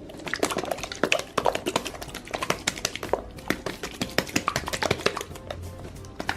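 Capped plastic shaker cup of water and slime powder being shaken hard: a rapid, irregular clatter of knocks as the mix is churned to make the goo.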